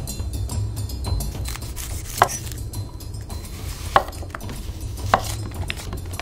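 Petty knife slicing red onion on a wooden cutting board: three sharp, clinking knocks as the blade meets the board, over background music with a steady low bass.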